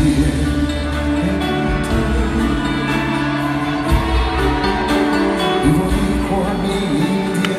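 Live pop music heard from the audience in an arena: a male singer holding notes into a microphone over the band, with the hall's echo.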